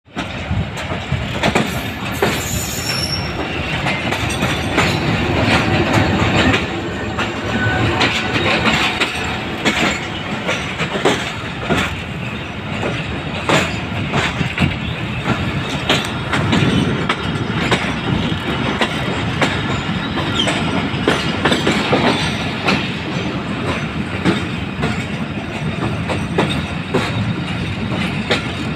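Passenger train's wheels clattering over rail joints and points as it pulls away and gains speed: an irregular run of sharp clacks over a steady rolling rumble, heard from the side of a moving coach.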